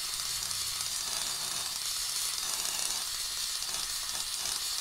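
Steady hissing sizzle of welding on a Suzuki Smash motorcycle crankcase, patching a hole at the gear-shift shaft.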